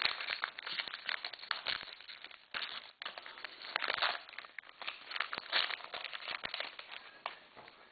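Trading card pack wrapper crinkling and tearing as a pack is opened by hand, an irregular run of crackles and short rustling bursts.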